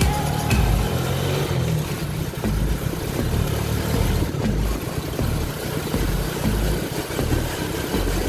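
Engine running and road noise from aboard a moving payong-payong, a motorcycle-based passenger cab, steady with an uneven low rumble.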